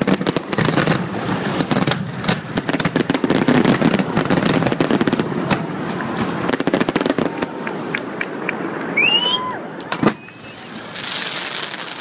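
Finale of a professional fireworks display: a dense barrage of aerial shell bangs and crackling, with a rising whistle shortly before one last loud bang about ten seconds in, after which it goes much quieter.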